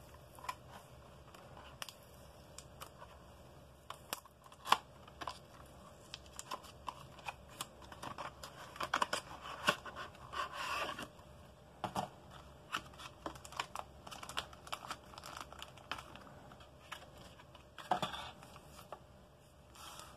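A clear seal sticker peeled off a cardboard SSD box, then a clear plastic clamshell tray slid out and handled: tearing and crinkling, cardboard and plastic rubbing, and many scattered small clicks, with denser rustling about halfway through and again near the end.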